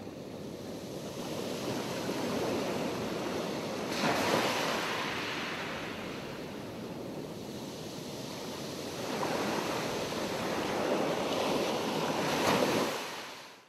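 Sea surf: waves washing in and drawing back, swelling loudly about four seconds in and again near the end, then fading out.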